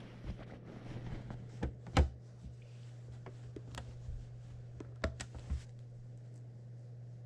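Sewing machine stopped between stitching runs: a steady low hum with scattered small clicks and knocks as thread and fabric are handled at the needle and presser foot, the sharpest click about two seconds in.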